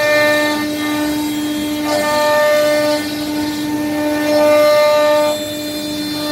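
CNC router spindle whining at a steady high pitch as it cuts, swelling louder for stretches of a second or so and dipping briefly a few times.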